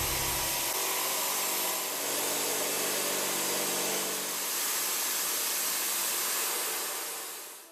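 BIG Daishowa Fullcut Mill indexable end mill, 33 mm across, cutting S55C carbon steel: a steady, bright metal-cutting noise that fades out near the end.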